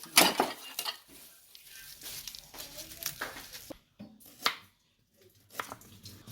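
Tableware clatter: spoons and dishes knocking and scraping in a string of separate clinks, the loudest just after the start and another about four and a half seconds in.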